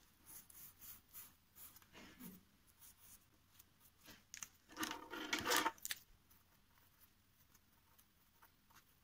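Faint scratching and tapping of felt-tip markers drawing on toilet paper, in many short strokes, with a louder handling noise about five seconds in.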